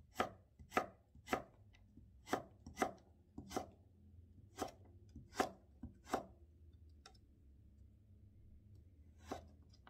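Kitchen knife slicing a carrot into thin 0.2 cm strips on a wooden cutting board: a series of crisp chops against the board, about one every half-second to second, pausing about six seconds in, with one more chop near the end.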